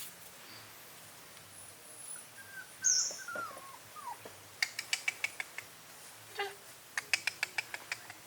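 Short animal calls: a sharp high chirp about three seconds in and a few falling whistles, then two quick runs of chattering clicks near the middle and near the end.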